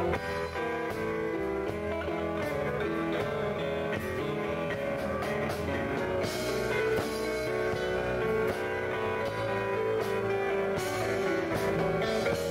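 Live band playing an instrumental passage: guitar leading over keyboards, with a steady drum beat.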